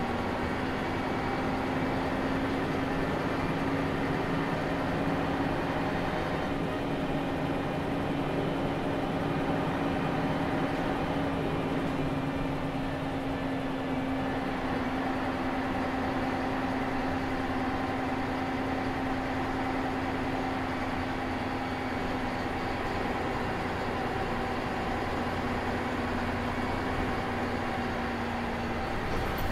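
Ikarus 280 articulated bus with a ZF Ecomat automatic gearbox, its diesel engine running with a steady drone, heard from inside the bus.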